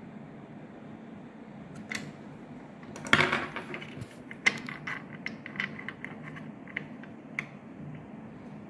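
Small metal lock parts being handled: a click, a short rattle about three seconds in, then a run of sharp clicks and taps.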